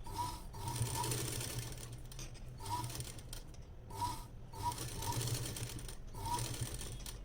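Sewing machine stitching in several short runs with brief pauses between them, as a seam is sewn along net blouse fabric.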